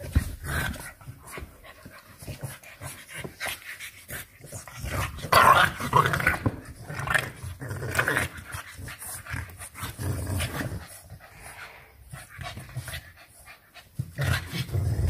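Two English Bulldog puppies play-fighting, growling in irregular bursts over scuffling in a soft dog bed, loudest about five to six seconds in.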